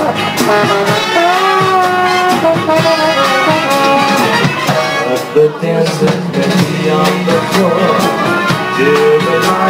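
Live band music: a trombone plays a melody of held and sliding notes over a drum beat. A loud hit comes about five and a half seconds in.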